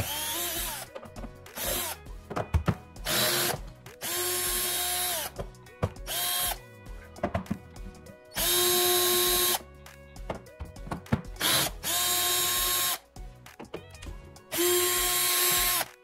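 Cordless drill with a quarter-inch socket backing out cover-plate screws, running in about eight short bursts of a second or so, each starting with a quick rise in pitch, with small clicks between. The audio is sped up to double speed.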